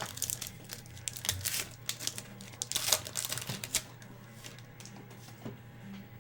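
Trading cards being flipped through by hand: a quick run of clicks and rustles, busiest in the first four seconds, then sparser.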